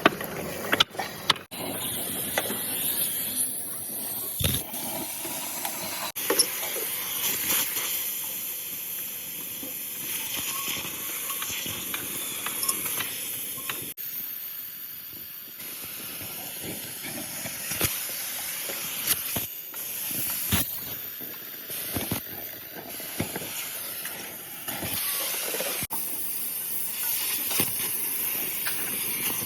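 Steady hissing noise with scattered knocks, broken by several abrupt cuts.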